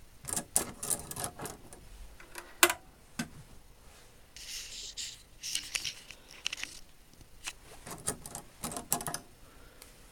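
Steel spring calipers clinking against one another as they are handled in a toolbox drawer: irregular light metallic clicks, with a couple of short scraping rustles about halfway through.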